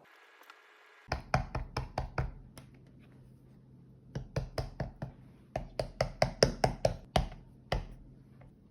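Quick runs of light knocks on a hard surface, about five or six a second, in three bursts with a couple of single knocks near the end.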